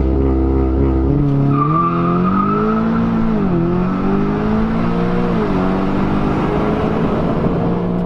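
Turbocharged Audi S3 four-cylinder engine accelerating hard: the pitch climbs, drops sharply at an upshift about three and a half seconds in, climbs again, drops at a second upshift about two seconds later, then holds steady.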